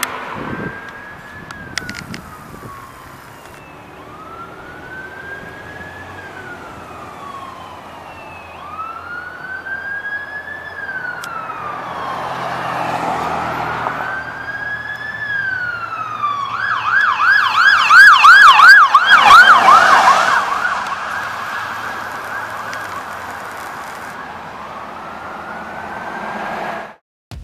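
Ambulance siren on a code 3 emergency run. It starts as a slow rising-and-falling wail, then about two-thirds through switches to a fast yelp of about four cycles a second. The yelp is the loudest part, with road noise under it, and then the siren goes back to the wail and fades.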